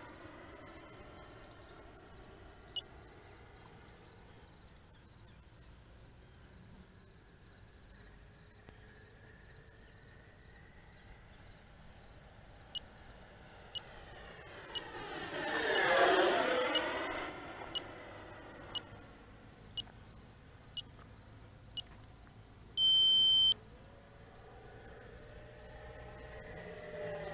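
E-flite Viper 90mm electric ducted-fan jet flying past: the fan's whine sweeps up and then down in pitch, loud about halfway through, and is fainter near the start and the end. A short electronic beep sounds near the end.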